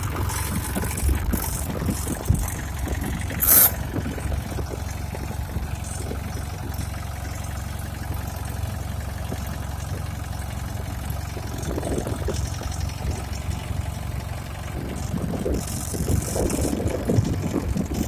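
Captain 25 hp tractor's diesel engine running steadily, with a brief loud noise about three and a half seconds in.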